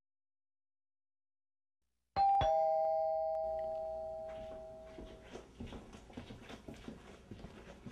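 Two-tone doorbell chime starting suddenly about two seconds in: two notes struck a quarter-second apart, the higher first, ringing on and fading out over about three seconds. Faint irregular taps and rustling follow.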